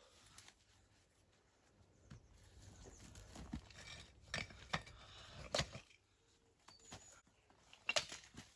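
Faint, scattered clicks and knocks of stones being handled and set on a stone wall, busiest in the middle and again near the end.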